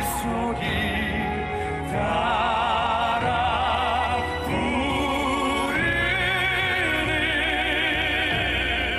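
Male classical-crossover singing in an operatic style, with a wide vibrato on long held notes over accompaniment. The melody moves up to a higher phrase about six seconds in.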